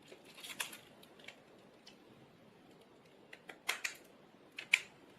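Small sharp clicks and a brief scratchy rustle from handling small parts and hand tools on a phone during repair work: a rustle about half a second in, then a few crisp clicks in two pairs near the end.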